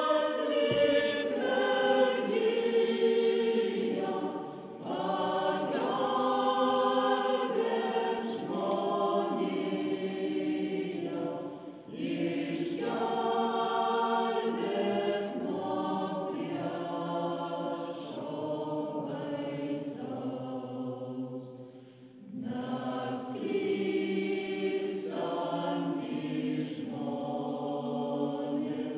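Mixed choir singing a slow song in a church, holding long notes, with brief pauses between phrases three times.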